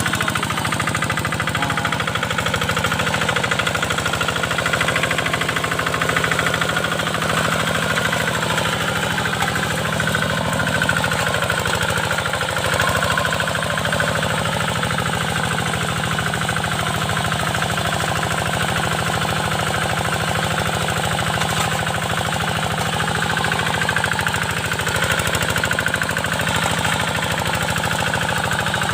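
Hand tractor's Kubota single-cylinder diesel engine running steadily with a fast, even knocking beat.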